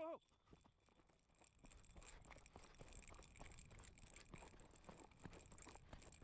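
Faint footsteps crunching on loose desert gravel and brushing through dry scrub as a person moves on foot, heard as many small irregular crackles. A short shout cuts off right at the start.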